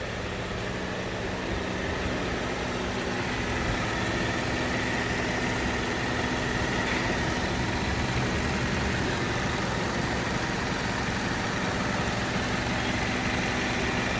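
Hyundai H1 van engine idling steadily after its timing was reset and the damaged intake camshaft advancer replaced, the repair for hard starting and misfiring. The mechanic takes the misfire as cured.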